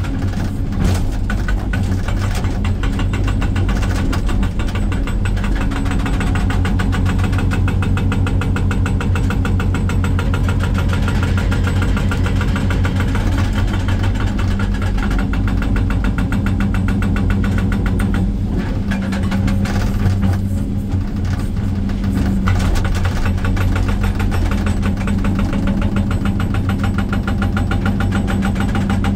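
Excavator-mounted hydraulic breaker pounding rock in rapid, evenly repeated blows, heard from inside the cab over the excavator's diesel engine running steadily under load.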